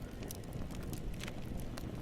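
Wood fire crackling: a steady low rumble of flames with scattered sharp pops and snaps of burning wood.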